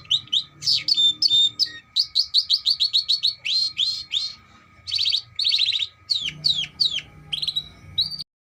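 Domestic canary singing a fast, varied song of rapid trills and quick rising and falling whistled notes; the recording cuts off suddenly near the end.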